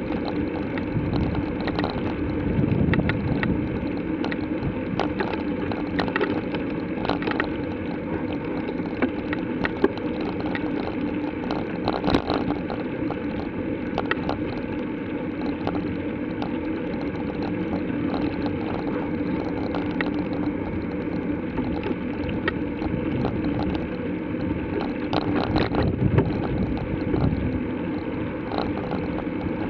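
Steady rumble and rattle of a bicycle rolling along a paved path, picked up by a camera mounted on the bike, with frequent small clicks and knocks from bumps in the surface.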